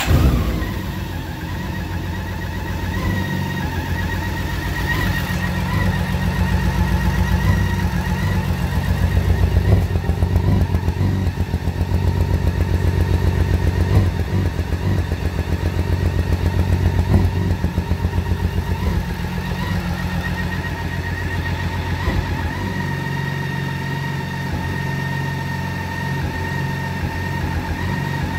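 2012 BMW K1600GT's inline-six engine running at idle just after starting, with an uneven, wavering beat: it is misfiring because water has got into the spark plug holes of cylinders 1 and 3.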